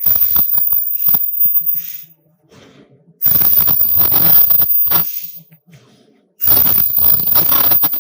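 Automatic ultrasonic welding machine for non-woven vacuum cleaner bags running in cycles: three bursts of mechanical clatter, each about two seconds long with a thin high-pitched whine over it, separated by short pauses.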